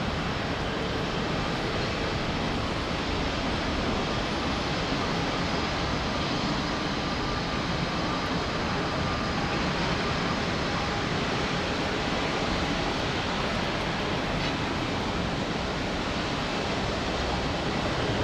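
Boeing 787 Dreamliner jet on approach: a steady rushing jet noise with faint high whining tones, mixed with strong wind.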